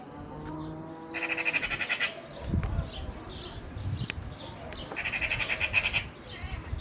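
Eurasian magpie chattering: two harsh, rapid rattles of about a second each, one after about a second and one about five seconds in, scolding a cat. A low drawn-out animal call sounds in the first second.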